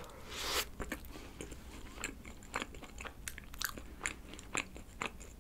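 Close-miked eating: a bite into a soft cream-topped bun with injeolmi rice cake and red bean filling, then chewing with scattered small mouth clicks.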